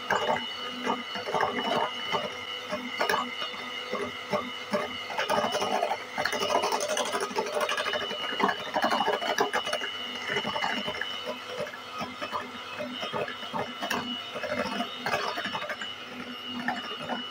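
Electric hand mixer running, its beaters whipping chilled whipping cream in a glass bowl: a steady motor whine with irregular clicking and scraping from the beaters.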